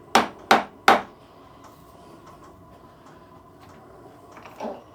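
Three sharp knocks in quick succession, about three a second, in the first second, then a faint knock near the end.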